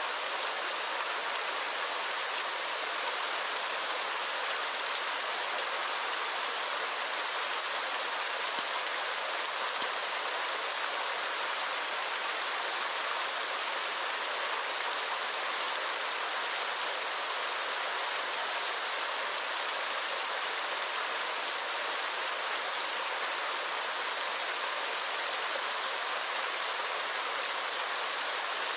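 Steady, even rush of water with no change in level, and two small ticks about nine and ten seconds in.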